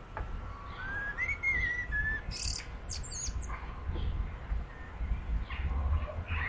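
Garden birds singing: a wavering whistled phrase about a second in, then a few short, very high chirps, with fainter calls later, over a steady low rumble.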